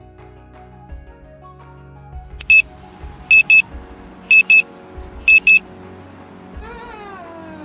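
Digital alarm clock beeping over soft background music: one high beep, then three quick double beeps about a second apart. Near the end a short tone with overtones slides downward.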